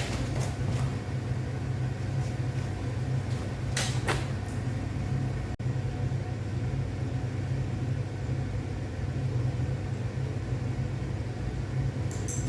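A steady low hum with a few light clicks or taps over it, one about four seconds in and another near the end.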